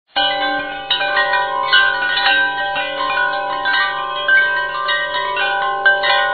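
Chime music: many bright, bell-like notes struck in quick succession, each ringing on and overlapping the others.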